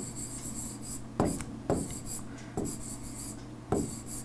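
Handwriting on a touchscreen: about five pen-down taps with scratchy strokes between them as a word is written. A steady low hum runs underneath.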